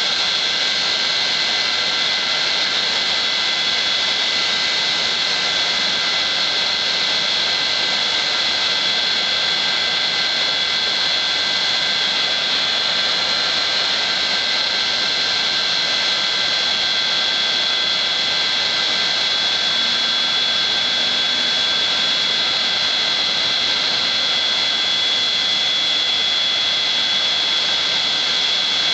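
Boeing 737 jet engines running at idle: a steady high whine over an even rush, with no change in pitch.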